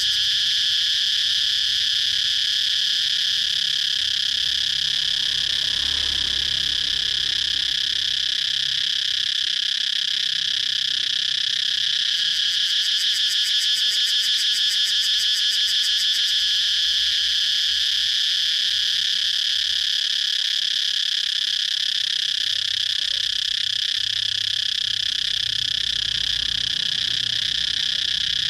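Cicada singing: a continuous, high-pitched buzzing drone that holds steady without a break.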